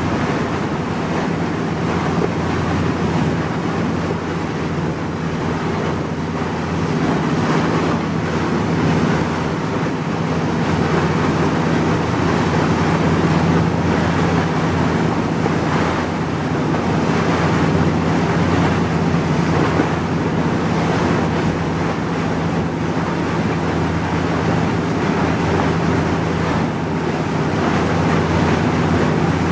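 Tour boat under way: its engine runs with a steady low hum while the wake's churning water and wind on the microphone make a constant rushing noise.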